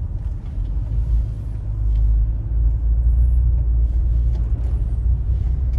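Low engine and road rumble heard inside a car's cabin while driving slowly, growing a little louder about two seconds in.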